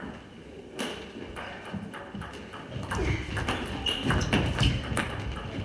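Table tennis ball clicking sharply off the bats and the table in a rally, a run of quick hits at roughly half-second spacing that starts just under a second in.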